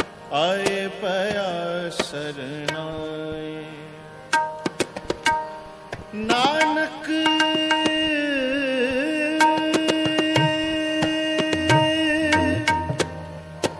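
Sikh shabad kirtan: wordless devotional singing over tabla strokes, the singer gliding between notes and then holding one long wavering note for about five seconds in the second half.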